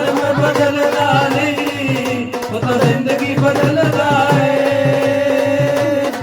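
Worship-song music with a steady drum beat under long held melody notes.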